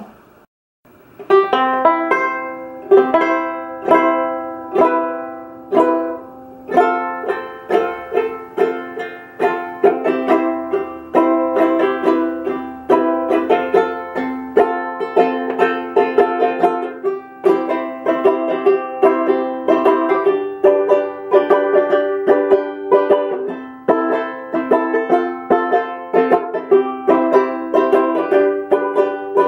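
DUKE 10 banjo ukulele, with a polyvinyl head on a 10-inch birch drum, being played. After a moment of silence, a few ringing chords are struck about a second apart. From about seven seconds in, it plays a quicker, continuous tune.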